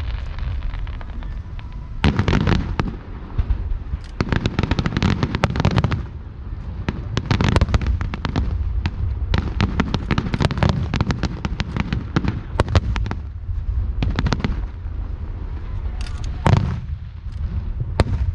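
Aerial fireworks bursting in rapid volleys of bangs and crackles, with a heavy low rumble between them and a single loud burst near the end.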